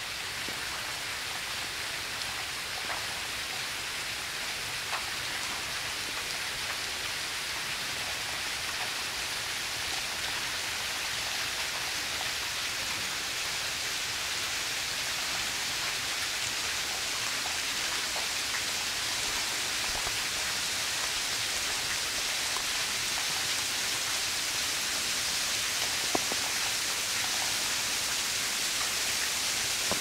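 Steady rushing hiss of water falling at a partly frozen waterfall, growing slowly louder, with a few faint clicks.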